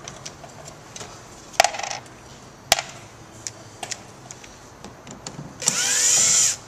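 Panasonic cordless drill/driver with a T20 Torx bit running for just under a second near the end, backing out a screw holding the door mirror. Before it, a few sharp clicks and knocks.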